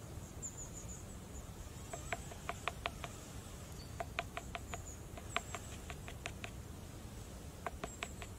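Wooden spoon tapping against a wooden board as it digs a well into a mound of flour: short runs of quick, sharp taps starting about two seconds in. Faint high chirping in the background.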